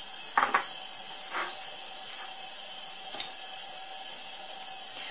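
Steady hiss of a lit gas stove burner, with two short soft rustles as salt is sprinkled over the raw ground beef, about half a second and a second and a half in.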